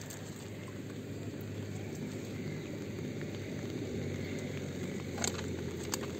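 Bamboo fish trap being tipped and shaken to empty it: a faint steady rustling, with a couple of sharp clicks near the end.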